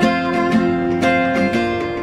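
A woman singing held notes over a strummed acoustic guitar.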